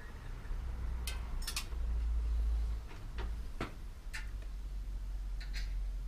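A handful of sharp, irregular clicks and ticks from a bicycle brake cable and its housing being handled and threaded, over a steady low hum.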